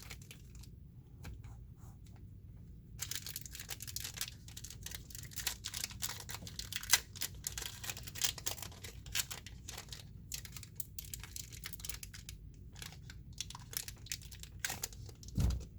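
A foil trading-card booster pack being torn open and its wrapper crinkled by hand, an irregular crackling that starts about three seconds in.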